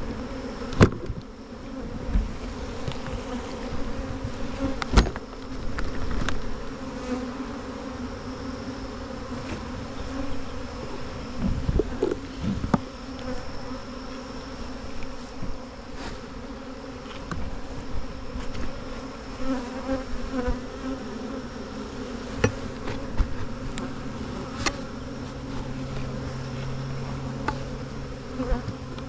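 Honeybees buzzing steadily in a dense hum around an opened nuc, with a few sharp knocks. A lower steady hum joins about two-thirds of the way through.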